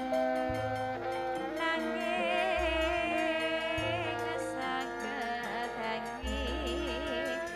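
Javanese gamelan music with a woman singing in a wavering vibrato over sustained instrumental notes, and deep low notes sounding every second or two.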